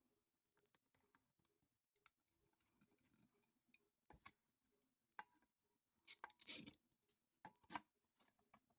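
Faint, scattered light clicks and taps of hand work in a small room. A short, louder rustling scrape comes about six seconds in, followed by two sharp clicks.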